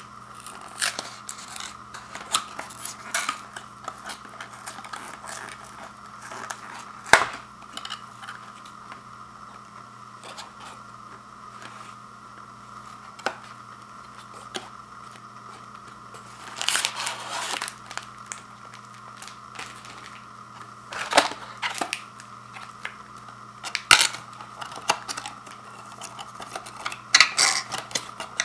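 Fingers opening and handling a small paperboard cookie box: scattered taps, scrapes and rustles of cardboard, with a few sharper snaps, busiest about halfway through and near the end. A faint steady hum runs underneath.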